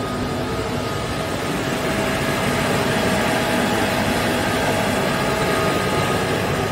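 KAESER Air Center SM12 7.5 kW rotary screw air compressor running, a steady dense machine noise with a faint steady whine over it, growing slightly louder about two seconds in.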